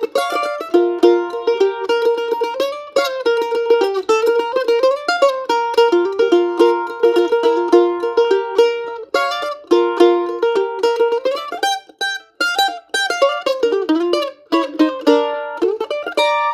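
F-style mandolin played solo: a bluegrass break in B flat, fast picked single notes out of first position. Near the end it plays double-stop licks and climbs to a higher position.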